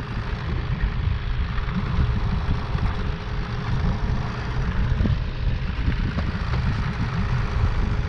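Wind rumbling steadily on the microphone, with a faint steady hum underneath.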